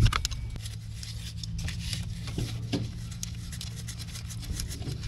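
Scattered light metallic clicks and ticks of a hex key loosening the starter's mounting bolts on an ATV engine, over a steady low hum.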